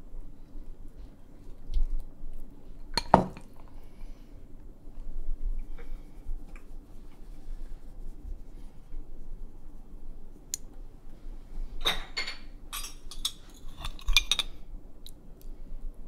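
A kitchen utensil knocking and clinking against a cooking pot as rice and fillings are spooned into it in layers. There is one sharp knock about three seconds in and a quick run of clinks near the end.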